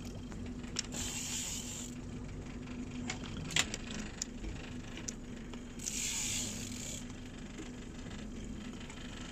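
A boat's motor runs steadily with a low hum. Two short bursts of hiss, about a second each, come a little after a second in and again about six seconds in, with a sharp click in between.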